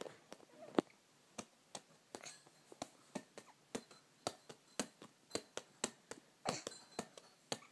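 A toddler's hands slapping and patting a ball: quick, irregular taps, about three a second.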